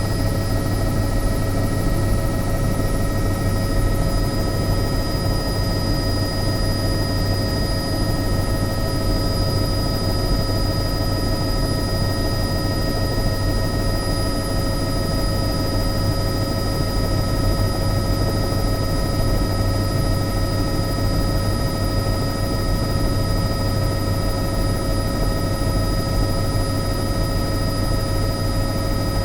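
Helicopter running steadily: a constant whine of several steady tones over a low drone, unchanging in pitch and level.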